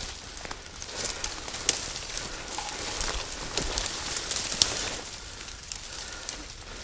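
Dry weeds and brush crackling and swishing against clothing and gear as someone pushes through thick cover on foot, with many scattered small twig snaps.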